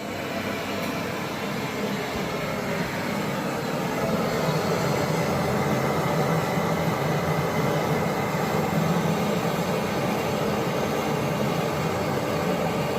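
Steady mechanical drone with a hum under a hiss, growing louder over the first few seconds and then holding steady.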